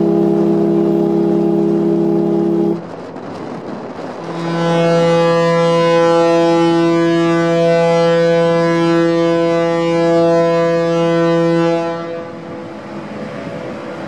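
Ferry horns: a long deep horn blast that cuts off suddenly about three seconds in, then, after a short gap, a second long, steady deep horn blast lasting about seven seconds from a large BC Ferries vessel.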